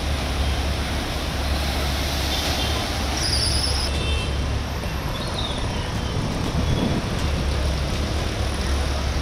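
Steady traffic noise of vehicles driving through a flooded street, with a constant wash of water and a heavy low rumble.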